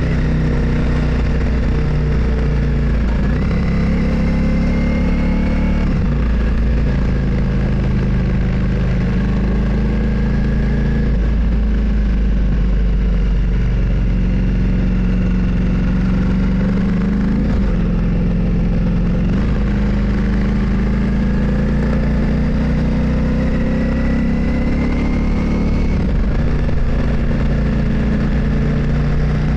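Motorcycle engine running while under way. Its pitch steps up and down every few seconds with throttle and gear changes, and there are a couple of brief rising whines.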